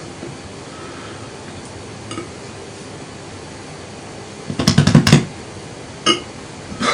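A man's short, rattly burp about two-thirds of the way through, one of several strained attempts that come out weak. A couple of light clicks come from handling the drink.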